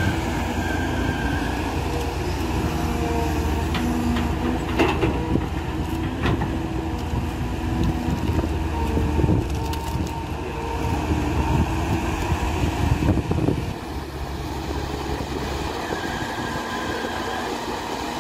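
Caterpillar 320B hydraulic excavator working: its diesel engine running under load with a steady hydraulic whine. A few sharp clanks come a little after the start, and a stretch of crunching and scraping follows in the middle as the bucket digs into wet mud. The crunching stops near the end, leaving the engine running.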